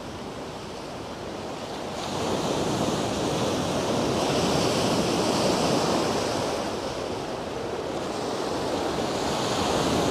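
Sea surf from a 2.5–3 foot swell breaking on the beach and against the foot of a sea wall: a steady wash of waves that swells up about two seconds in, eases briefly, then builds again near the end.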